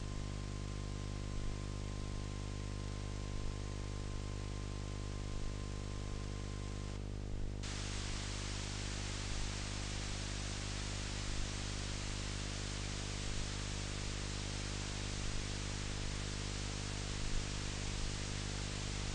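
Steady tape or film-soundtrack hiss over a low electrical hum, with no music yet. The hiss gets louder about seven and a half seconds in, and faint ticks come about every two seconds.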